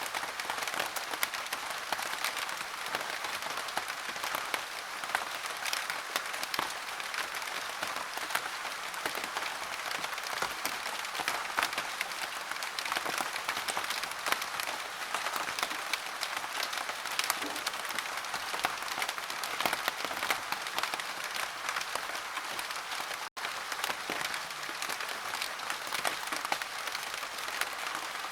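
Steady rain falling on a surface: a dense, even hiss of countless small drop ticks. It breaks off for a split second about two-thirds of the way through, then carries on the same.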